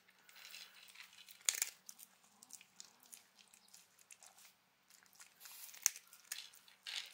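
Shiba Inu crunching and chewing dry kibble in irregular bursts of sharp crunches, the loudest about a second and a half in and near six seconds.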